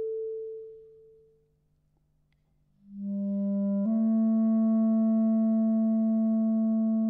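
Clarinet playing long held notes. A note fades away, there is a second of near silence, then a low note swells in from nothing and steps up a little to a steady held tone.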